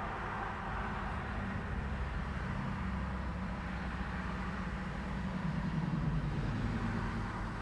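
Street traffic: a steady hiss of passing cars with a low engine rumble that swells, loudest about six seconds in, as a vehicle goes by.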